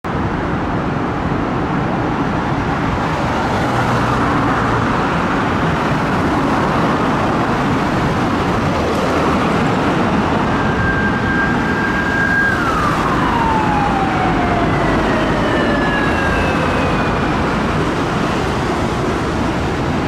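Steady road traffic passing; about halfway through, a police motorcycle siren holds a high steady tone for about two seconds, then winds down in a long falling glide.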